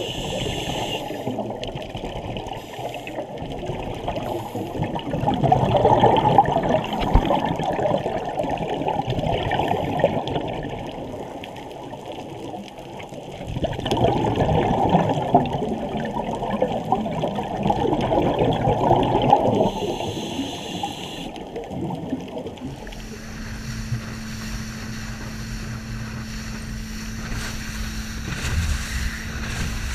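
Scuba exhalation bubbles rushing past the underwater camera in two long bursts, with quieter stretches between. About three quarters of the way through, the sound cuts to the steady engine hum of an inflatable dive boat under way, with wind and water.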